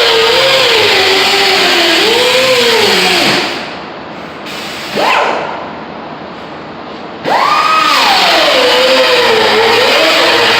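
A handheld power tool, such as a grinder or sander, working rust off car body metal. Its whine sags and wavers as it is pressed into the work. It lets off a few seconds in, revs up briefly, then spins back up to full speed and bogs down again under load.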